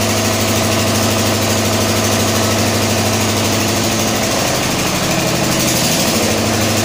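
Single-cylinder four-stroke diesel engine on a test rig running steadily, its firing strokes giving a fast, even chug.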